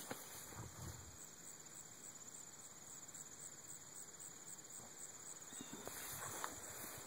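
Insects trilling steadily in a quiet outdoor background, a faint high-pitched pulsing chorus.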